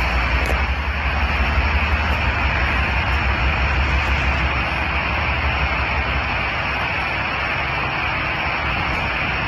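Norfolk Southern freight train rumbling past, a steady heavy rumble with a wide hiss of rolling noise; the low rumble eases about halfway through.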